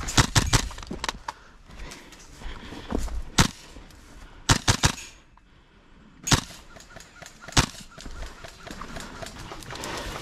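Gas blowback airsoft rifle firing in sharp, separate shots: a quick string of about four right at the start, then single shots spread over the following seconds, with a fast run of three about halfway through.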